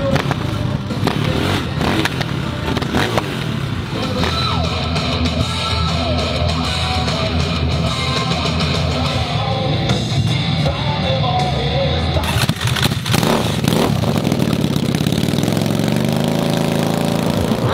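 Background music with dirt bike engines running underneath it.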